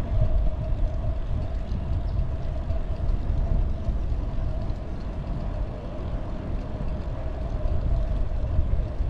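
Riding noise from a bicycle on a concrete path: wind rumbling on the microphone and tyres rolling, with a steady faint hum running underneath.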